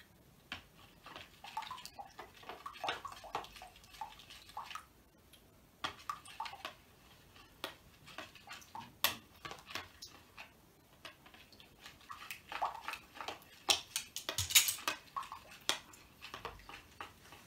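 Metal spoon stirring a liquid PVA glue and baking-soda mixture in a plastic bowl: irregular scrapes and light clicks against the bowl, busiest and loudest near the end, as contact lens solution is stirred in to start the slime forming.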